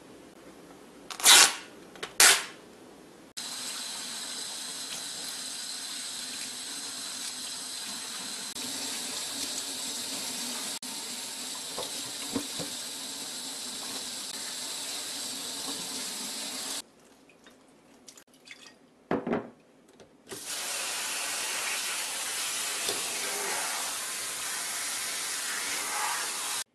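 Kitchen tap running into a stainless-steel sink, the water splashing onto leafy salad greens in a metal colander. It is preceded by two sharp knocks, and the water stops for a few seconds partway through, with a single knock in the gap, before running again.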